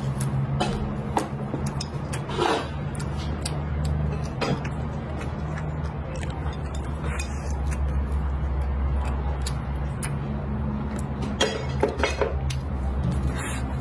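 A person eating from a ceramic bowl with chopsticks: chewing and mouth sounds, with scattered light clicks of chopsticks against the bowl, over a steady low hum.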